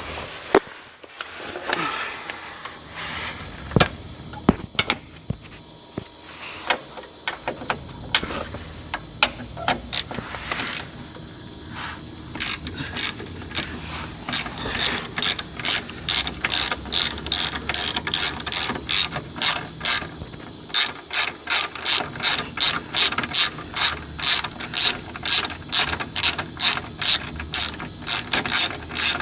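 Ratchet wrench clicking as bolts are turned out of the truck's condenser mounting. Scattered knocks and clicks come first, then from about halfway a steady run of quick, even clicks.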